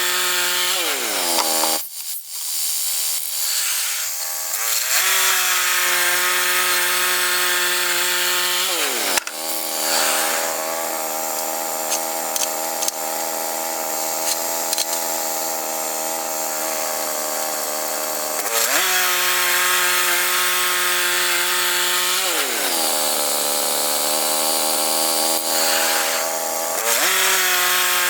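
Woodland Mills HM122 portable band sawmill running, its engine's pitch dropping and rising several times with load and throttle. Through the middle the band blade is cutting through a log with a steady hiss over the engine.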